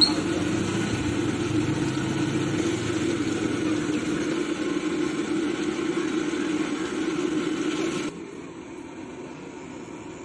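Samosas deep-frying in a kadai of hot oil over a burner: a steady roar with the sizzle of the oil. It cuts off suddenly about eight seconds in, leaving a quieter background.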